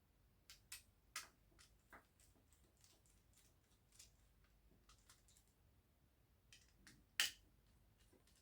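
Faint, scattered small clicks and taps of plastic parts of an Xbox One S controller being handled during disassembly, with one sharper click about seven seconds in.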